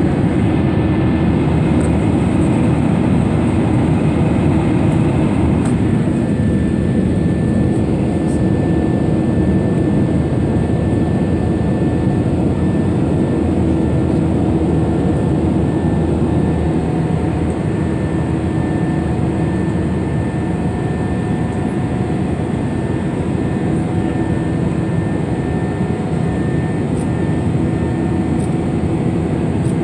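Cabin noise inside an Airbus A320-family jet airliner in flight, heard from a window seat over the wing: an even, low rush of the turbofan engines and airflow. A faint steady high whine comes in about six seconds in.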